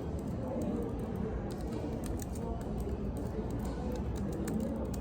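Typing on a computer keyboard: irregular key clicks over a steady café background of murmur and music.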